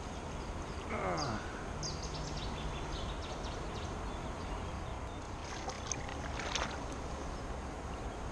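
Steady rush of river water close to the microphone, with a few small splashes and clicks as a freshly caught fish is handled in the shallows.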